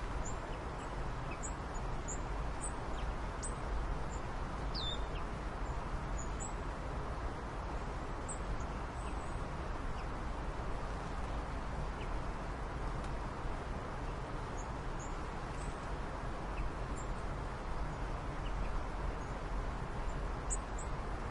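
Steady outdoor background noise with faint, short, high-pitched bird chirps scattered throughout.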